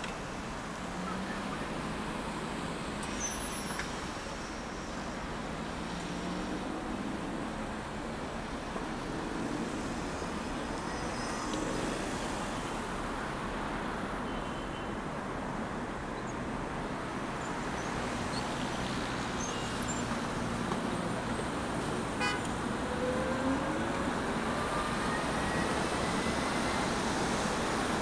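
City street traffic: a steady wash of passing motor vehicles and road noise, with a few faint rising whines near the end.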